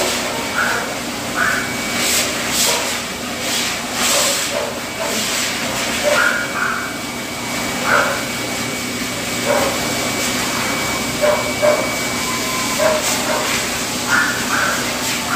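Pet grooming dryer blowing air through its hose onto a cat's damp fur: a steady motor hum with a rushing hiss that swells a couple of times as the nozzle is moved, and short high calls breaking in now and then over it.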